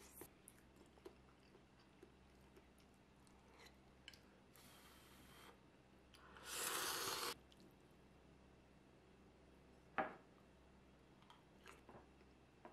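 Quiet eating at a table: faint chewing and small clicks, a short noisy slurp of noodles a little past halfway, and a single sharp tap of tableware about ten seconds in.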